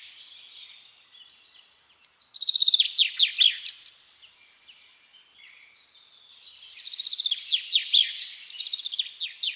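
Rose-ringed parakeet chicks begging with rapid runs of short, rattling chirps as they are fed, in two loud bouts a few seconds apart.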